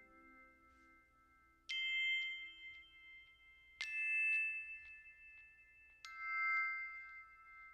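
Soft background music: three struck chime or glockenspiel-like notes about two seconds apart, each left to ring out.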